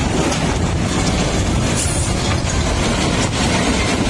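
Diesel engine of a dump truck running revved up to drive the hydraulic hoist as the loaded tipper bed rises, a loud steady drone.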